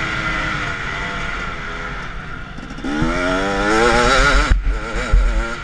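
Motocross bike's engine heard onboard while riding: running on part throttle and easing off about two seconds in, then revving up hard about three seconds in with a rising pitch, cutting briefly about four and a half seconds in before picking up again.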